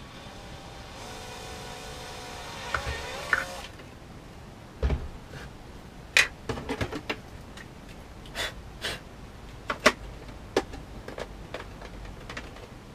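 Cordless drill with a 4 mm bit running for about two and a half seconds to drill a screw hole in plastic armour, its pitch dipping near the end. Then a run of sharp clicks and knocks as the plastic parts are handled and set down.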